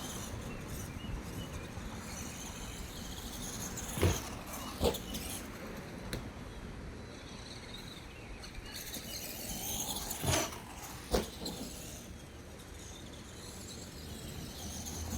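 Electric RC monster truck driving, its motor and drivetrain running steadily under a bed of outdoor noise. It gives two pairs of sharp knocks, about four and ten seconds in, as the truck bumps and lands.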